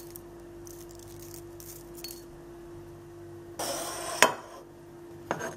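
Dried mint leaves rustling and crackling as they are handled and dropped into a bowl. About four seconds in comes a louder rustle that ends in a sharp clink of dishes, with a second, lighter clink near the end.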